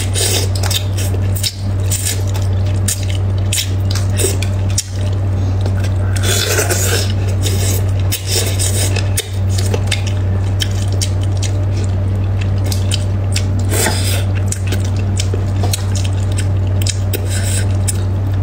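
Close-miked eating of braised fish: wet squishing and chewing mouth sounds as flesh is worked off the bones, with many small clicks of chopsticks against the dish and plastic cup, over a steady low hum.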